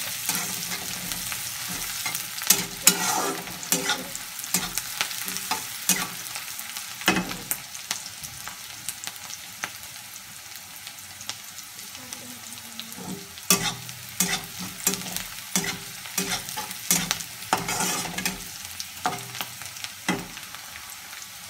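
Chopped onion, garlic and green chillies sizzling steadily in hot oil in a kadhai while being fried until lightly browned. A flat spatula scrapes and knocks against the pan in irregular strokes as the mix is stirred.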